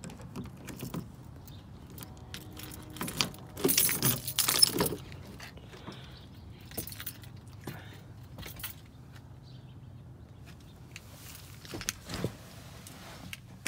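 Car keys jangling on a key ring as a key unlocks the driver's door of a Chevrolet Impala. A cluster of loud clunks and rattles about four seconds in comes as the door is opened, followed by scattered knocks and rustles as someone gets into the car.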